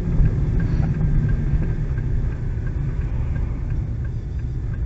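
Car interior while driving: a steady low rumble of engine and tyre noise, with the turn signal ticking evenly and faintly, about two or three ticks a second, ahead of a right turn.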